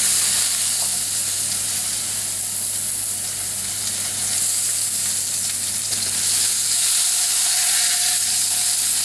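Wild boar roast searing in hot pomace olive oil in a heavy-based frying pan, sizzling steadily as it is turned with tongs to brown each side.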